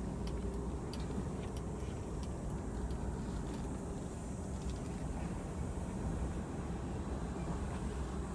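A car's engine running, heard from inside the cabin as a steady low rumble, with a few faint high ticks in the first few seconds.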